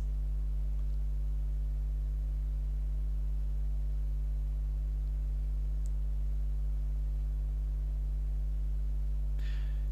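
Steady low electrical hum with faint higher overtones, unchanging throughout, typical of mains hum on the recording. A short breath near the end.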